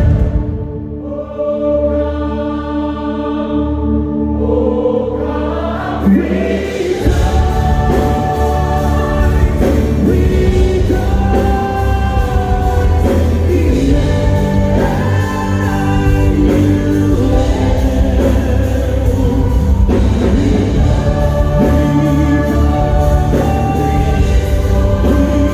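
Church choir singing a gospel worship song with band accompaniment. It opens softly on held chords, and the full band with bass comes in about six seconds in.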